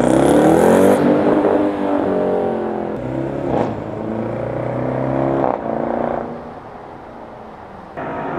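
2018 Jeep Grand Cherokee Trackhawk's supercharged 6.2-litre V8 under full-throttle acceleration from a standstill. The engine note climbs in pitch, drops back at each upshift and climbs again, then fades as the car pulls away into the distance.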